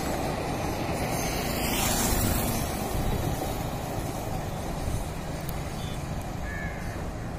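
Running rumble of an express train of ICF passenger coaches on the track, fading slowly as the train draws away.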